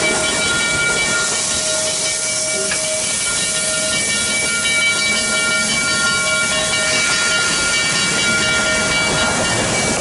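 Steam hissing steadily from a narrow-gauge steam locomotive, Durango & Silverton K-36 No. 486, with thin steady whistling tones running through the hiss.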